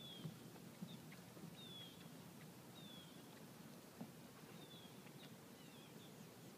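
Faint, short bird chirps, each sliding down in pitch, repeated about six times roughly a second apart over a quiet background with a few small ticks.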